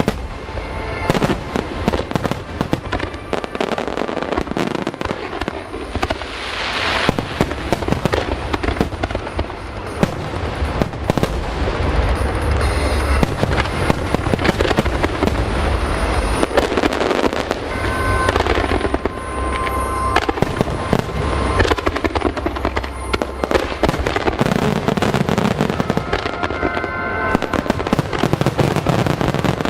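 Aerial fireworks display: a dense, unbroken run of shell bursts and crackling over a constant deep rumble of booms.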